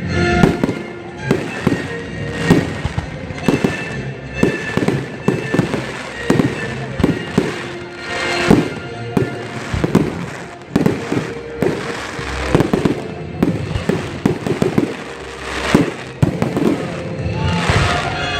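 Fireworks going off in a rapid, uneven string of sharp bangs and crackles, several a second, with music playing underneath.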